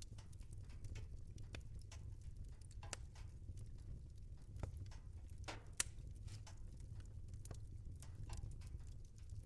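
Wood fire crackling in a fireplace: irregular snaps and pops over a low, steady rumble of the flames, with one sharper pop a little past the middle.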